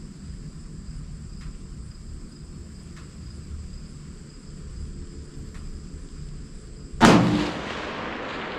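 Insects chirping steadily over low background noise, then a single rifle shot about seven seconds in, its report echoing and fading over about a second.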